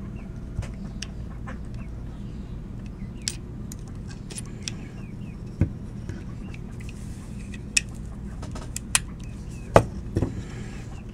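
Scattered sharp clicks and light knocks of Hi-Point C9 pistol parts being handled and pressed into place by hand, the loudest about two-thirds of the way in and a pair just before the end, over a steady low hum.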